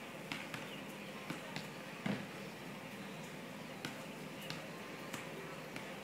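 Steady outdoor background noise with scattered sharp clicks and one louder knock about two seconds in.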